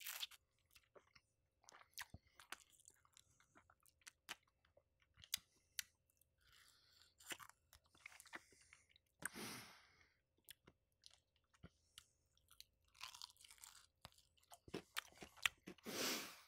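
Crispy Popeyes fried chicken being bitten and chewed: irregular crisp crunches mixed with wet chewing, with louder crunching bites right at the start, about nine seconds in and near the end.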